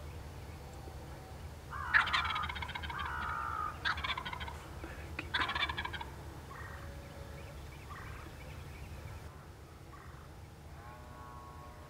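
Osceola wild turkey gobbler gobbling: a loud gobble about two seconds in, followed by two shorter gobbles about four and five and a half seconds in, then fainter calls.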